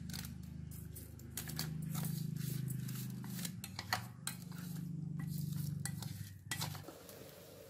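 Wooden chopsticks clicking and scraping against a stainless steel bowl while tossing raw pork intestines with chopped chili, garlic and seasonings, over a steady low hum. The clicking stops near the end.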